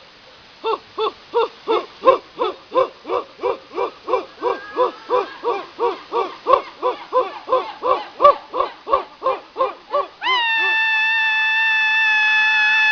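A person's voice chanting a short hooting call over and over, about three times a second, then breaking into one long held yell near the end.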